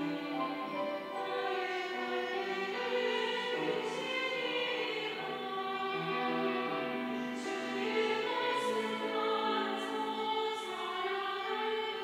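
Mixed-voice church choir singing a sacred anthem in long, sustained chords.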